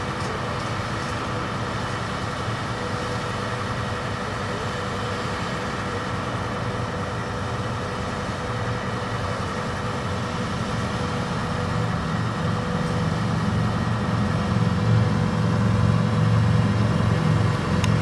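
Boom truck's engine running steadily at idle, growing louder over the last several seconds.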